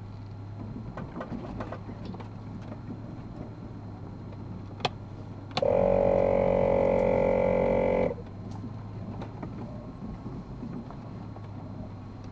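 Four-wheel drive crawling slowly up a forest dirt track, heard from inside the cab as a faint rumble over a steady low hum. A little past the middle a loud, flat buzzing tone sounds for about two and a half seconds, starting with a click and cutting off suddenly.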